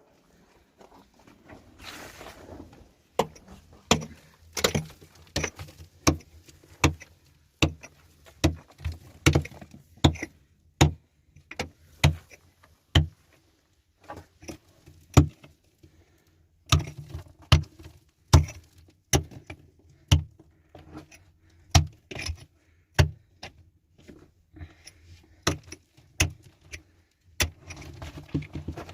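A long series of sharp knocks or strikes, irregular at about one to two a second, some in quick pairs, with short pauses between runs.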